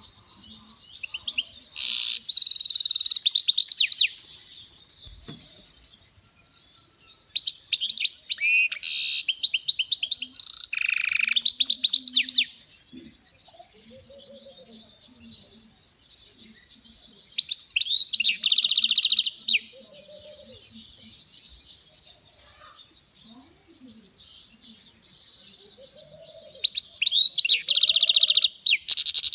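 European goldfinch singing: four loud bouts of fast, twittering song, with soft twitters in the gaps between them.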